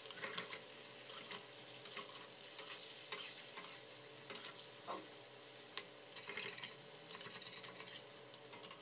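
Cubes of white tofu frying in oil in a stainless steel wok, sizzling steadily as their outsides turn golden, while a metal spatula scrapes and taps against the wok to turn them. The scraping and tapping get busier a little past the middle.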